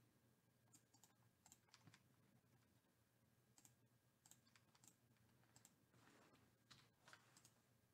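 Near silence, with faint scattered clicks a few times a second.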